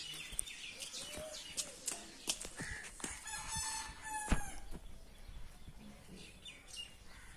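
A rooster crowing once, about three seconds in, one held call lasting about a second and a half, over small birds chirping. A sharp knock sounds in the middle of the crow.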